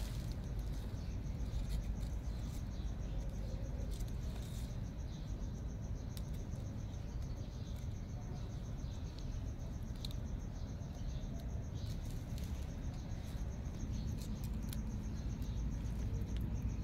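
Insects chirping in a fast, even, high-pitched pulse that runs on steadily, over a steady low rumble and a few faint clicks.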